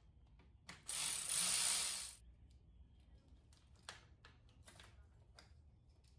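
A ratchet wrench spun quickly for about a second, followed by scattered clicks and taps of tools and parts.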